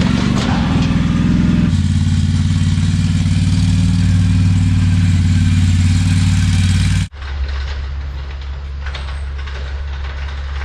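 A heavy engine running steadily, then an abrupt cut about seven seconds in to a lower, steadier engine hum.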